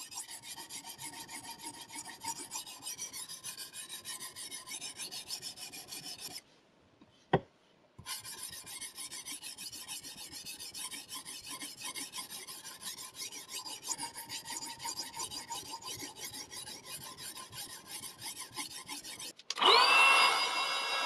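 CBN sharpening stone on a KosiM guided-rod sharpener stroked rapidly back and forth along a VG-10 kitchen knife's edge, a steady rasping. About six seconds in the strokes stop for a moment, with a single sharp click as the knife clamp is turned over, then they resume. Near the end a small handheld electric tool's motor starts with a rising whine and runs loudly, the loudest sound.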